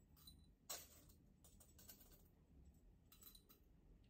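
Faint light clicks and rattles of coffee beans being spooned into a small container while a dose is weighed out: one sharper click, then two short clusters of lighter clicks.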